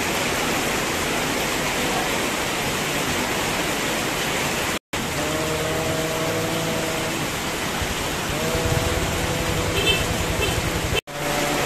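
Heavy rain pouring down onto a street and the tarp awnings and umbrellas over it: a steady, dense hiss. It drops out abruptly twice for a split second.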